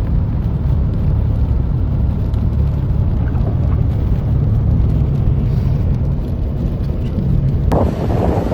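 Strong blizzard wind buffeting the microphone: a loud, steady low rumble that turns brighter and rougher near the end.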